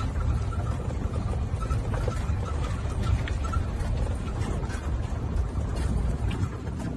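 Golf cart running along, a steady low rumble with a few faint clicks and rattles.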